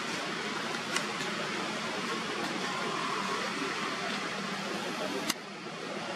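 Steady outdoor background noise with no clear single source, broken by two short clicks, about a second in and near the end.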